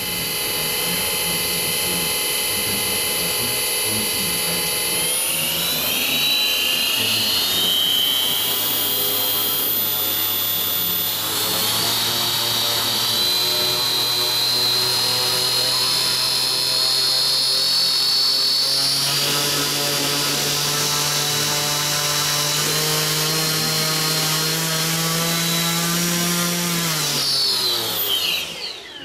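Predator 37 electric sustainer motor spinning the EMG-6's propeller in a ground test run, a steady electric whine that steps up in pitch three times as the throttle is raised. Near the end it glides down in pitch as the motor spins down and stops.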